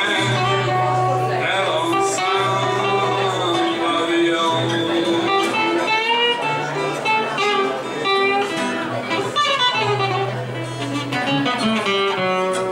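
Live acoustic blues: two acoustic guitars playing together, with a harmonica and a sung vocal over them.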